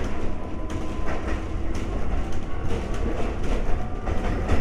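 Ex-Tokyu 7000-series electric railcar running: a steady low rumble with repeated wheel clacks over rail joints and a faint steady whine.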